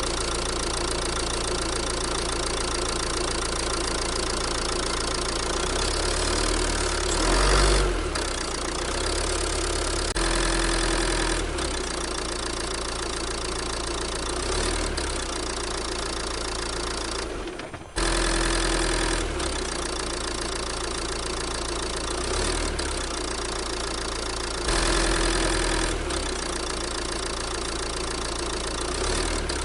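Sound effect of a heavy vehicle's engine running steadily with a knocking clatter, swelling louder a few times and cutting out briefly about two-thirds of the way through before carrying on.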